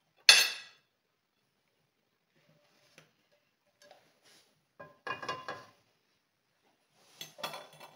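Frying pan clattering against the metal grate of a gas hob: a sharp clatter just after the start, a quick run of knocks with short metallic ringing about five seconds in, and another clatter near the end, with a few faint ticks between.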